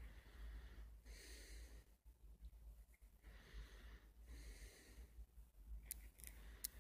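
Near silence with faint breathing close to the microphone: two soft breaths about three seconds apart, then a few faint clicks near the end.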